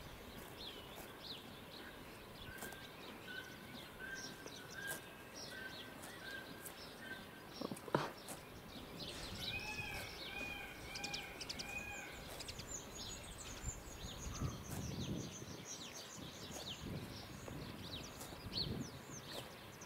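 Faint outdoor ambience with songbirds chirping throughout, including two short runs of repeated clear whistled notes, and a single sharp click about eight seconds in.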